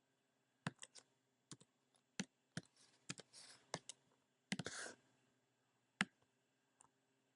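Faint, irregular clicks of a computer mouse and keyboard, about fifteen over several seconds, with a couple of short soft rustles in the middle.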